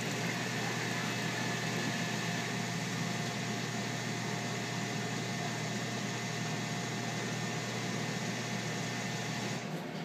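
Seattle's Best self-serve coffee machine running while it dispenses coffee and then frothed milk into a cup: a steady hum with a hiss over it that cuts off just before the end, as dispensing finishes.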